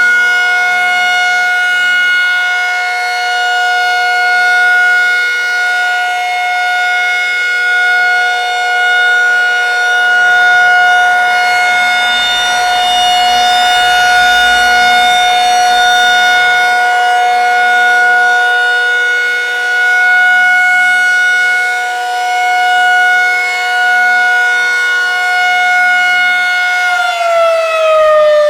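Federal Signal 2001-SRNB outdoor warning siren sounding its steady alert tone, the loudness swelling and fading every five seconds or so as the head rotates. About a second before the end the pitch begins to drop as the siren winds down at the end of the test.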